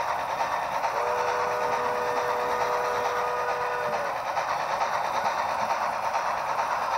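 Model railroad freight cars rolling along the track with a steady rolling rush of wheels on rail. A held chord of three steady notes sounds from about a second in for about three seconds.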